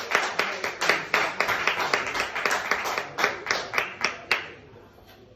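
Small audience clapping at the end of a song, the separate claps distinct rather than a dense roar, thinning out and stopping about four and a half seconds in.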